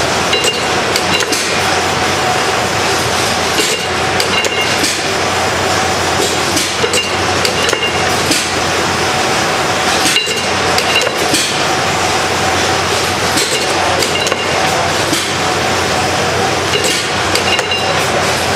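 Working replica of an Otto-Langen non-compressing atmospheric engine running: irregular metallic clicks and knocks, about one a second, over a steady mechanical noise.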